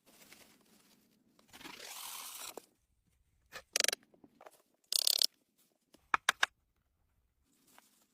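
Dry reeds crunching and tearing as they are handled and cut: a rush lasting about a second, then a few short sharp crunches and three quick snaps.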